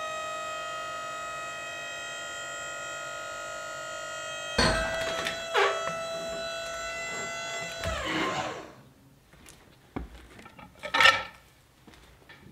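Background music: held chords with a plucked guitar-like attack about four and a half seconds in, fading out around eight seconds in. A few sharp knocks follow in the remaining seconds.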